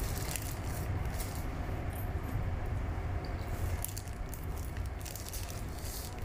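A plastic snack packet crinkling in several short bursts as a hand rummages in it, over a steady low rumble inside a train carriage.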